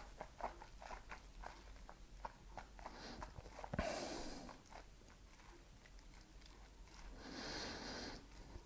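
Faint mouth sounds of a person tasting a sip of whisky: small wet clicks of the lips and tongue through the first few seconds, then a short breath out just before the halfway mark and a longer one near the end.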